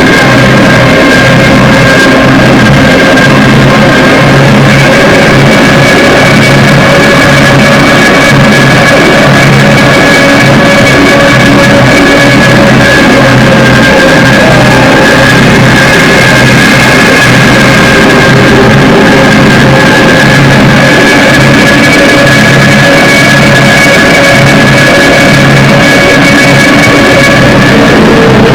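Drone/noise-metal music: a constant, very loud wall of noise with several steady held high tones over a low, pulsing drone.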